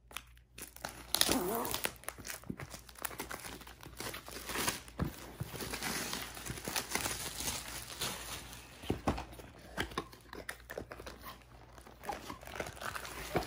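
Irregular crinkling and rustling of packaging as a long cardboard diamond painting kit box is handled and opened, with light scrapes and taps.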